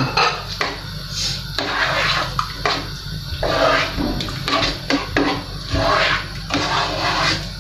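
A spoon stirring chicken pieces through a thick cream sauce in a pot, making repeated scraping, sloshing strokes against the pot, about two a second.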